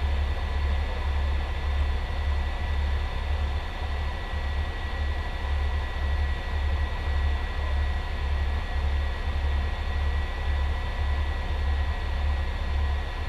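Fire engine's diesel engine idling, heard inside the cab: a low throb that pulses at an even rhythm, with a steady high whine over it.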